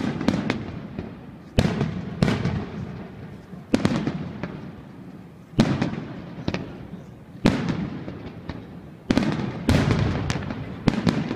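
Fireworks display going off: loud bangs of bursting shells every second or two, some in quick pairs or threes, each followed by a rolling echo that dies away.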